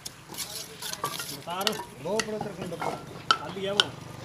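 Sharp taps and clicks of a mason's hammer and trowel on fired bricks and wet mortar as bricks are set in place, several irregular strikes with scraping between them.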